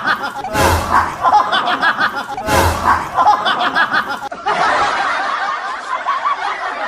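Snickering laughter that repeats in the same pattern about every two seconds, like a looped laugh clip. About four and a half seconds in it gives way to a different, steadier stretch of laughter.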